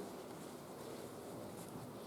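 Quiet room tone with a few faint rustles and small clicks.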